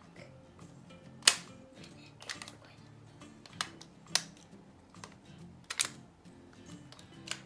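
Hard plastic clicks and snaps from a Power Rangers Dino Charge zord toy as its jointed segments are turned and locked into place by hand: a sharp click about a second in is the loudest, with several more scattered after it. Faint background music runs underneath.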